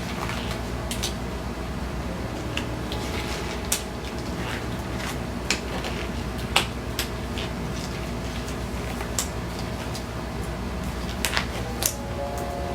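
Steady low hum with scattered light clicks and taps of things being handled. The sharpest come about four, five and a half and six and a half seconds in, and a pair comes near the end.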